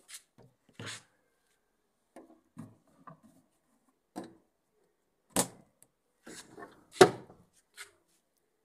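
A few scattered clicks and knocks from handling the washing machine's spinner lid and controls, the loudest a sharp knock about seven seconds in.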